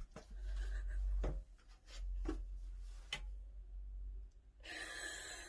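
Handling noise on a phone held in the hand: a run of clicks, knocks and rubbing over a low rumble as the phone and a plastic pregnancy test are moved about. Near the end comes a heavy, breathy exhale or gasp lasting about a second.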